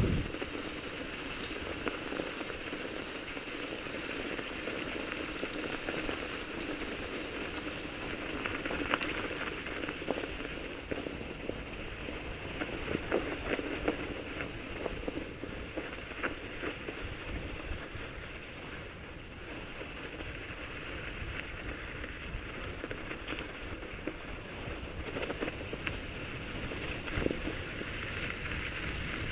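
Mountain bike tyres crunching and hissing over packed snow, a steady rough noise with scattered short clicks and knocks.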